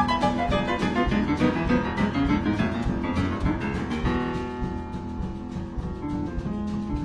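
Background music led by piano: a run of quick notes over a low bass, settling into held chords about four seconds in.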